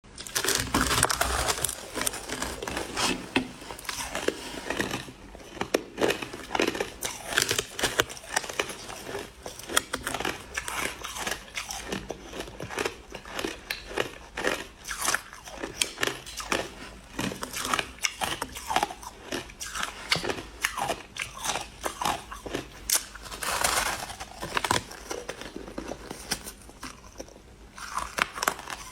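A person biting and chewing crushed ice, with rapid crunches one after another and brief pauses between mouthfuls.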